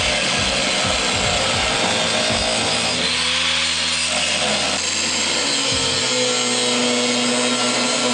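Handheld angle grinder with a cut-off disc cutting through steel, running continuously under load. Its motor whine dips and recovers as the disc bites into the metal.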